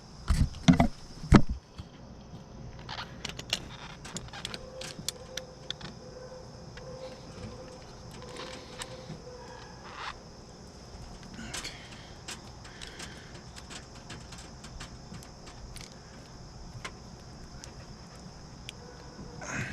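A few heavy knocks about a second in, then scattered light metallic clicks and clinks: hand tools and a half-inch copper line set being handled while a flare is prepared.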